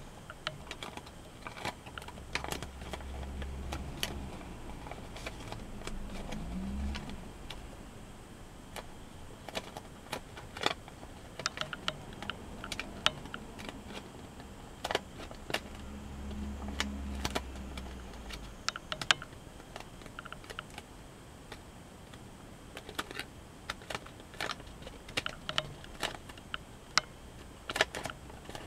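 Origami paper being folded and creased by hand: irregular crisp clicks, taps and crackles as the paper is pressed and flattened. A low rumble rises and fades twice, in the first third and again past the middle.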